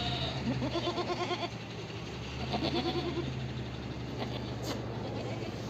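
Goats bleating: two long, quavering bleats about two seconds apart, over a steady low hum.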